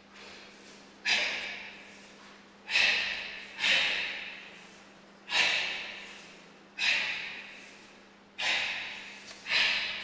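A karateka's forceful, hissing exhalations during a kata, seven in about nine seconds. Each starts abruptly and fades over about a second, in time with the techniques.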